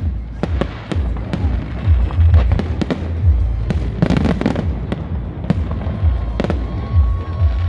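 Aerial fireworks display: shells bursting in many sharp bangs in quick succession over a steady low rumble, with a dense cluster of bangs about four seconds in.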